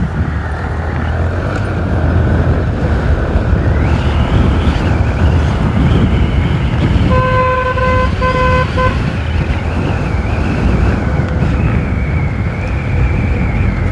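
Motorcycle engine running under way with road noise. About seven seconds in, a horn gives three short honks.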